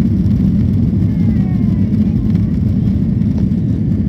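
Jet airliner's engines and airframe heard from inside the passenger cabin as it rolls along the runway for take-off: a loud, steady low rumble.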